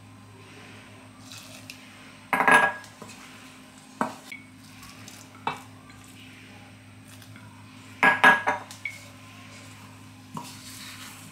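Metal spoon clinking and scraping against a stainless steel mixing bowl while stirring tapioca-flour dough, with two short bursts of clatter, the first about two seconds in and the second near eight seconds, and a few single knocks between, over a low steady hum.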